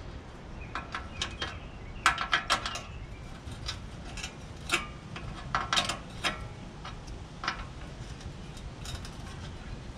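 Irregular metallic clicks and clinks from hand work on a manual reel lawnmower: an adjustable wrench on the bedknife adjustment bolt, and the reel blades handled and turned, some strikes ringing briefly. The clinks cluster about two seconds in and again around six seconds.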